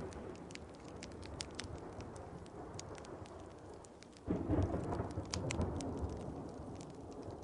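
Wood fire crackling with sharp pops over steady rain, with a roll of thunder that breaks in suddenly a little over four seconds in and slowly rumbles away.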